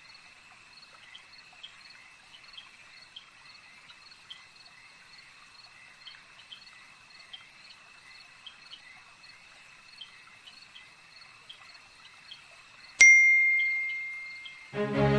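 Steady chirping of night insects: a high drone with regular chirps about one and a half to two times a second. About thirteen seconds in, a phone's message notification dings once, the loudest sound, its tone fading away over a second or two.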